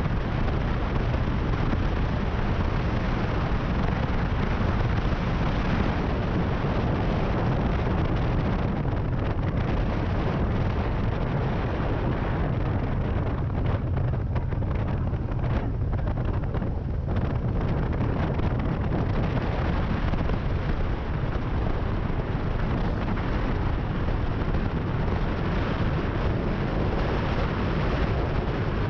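Cruiser motorcycle riding along at road speed, heard as heavy wind buffeting on the microphone over the engine and tyre noise. The noise holds steady and eases a little in the middle before picking up again.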